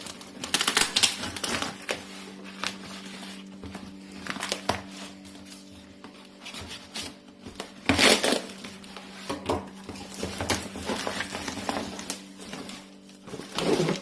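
A small knife cutting packing tape and cardboard on a shipping box, with the cardboard flaps rustling, scraping and tearing as they are pulled open. The sounds come in irregular bursts, loudest about a second in, about eight seconds in and near the end.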